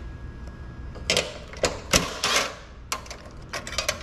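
Socket wrench working a nut off a Toyota Prius Gen 2 hybrid battery case: a few sharp metal clinks about a second in, then a quick run of small ratchet-like clicks from about three seconds in.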